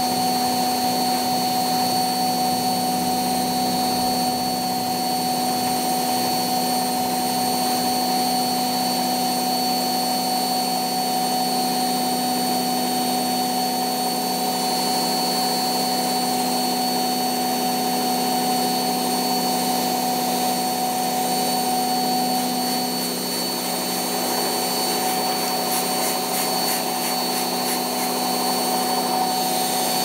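Pro Action A105QW front-loading washing machine on a test spin after repair, its drum spinning at a steady speed. The motor gives a steady whine over a mechanical hum, with no rise or fall in pitch.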